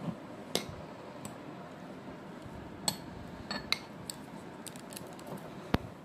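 Metal ice cream scoop clinking and knocking against bowls while scooping frozen ice cream: a handful of separate sharp clinks, the loudest near the end.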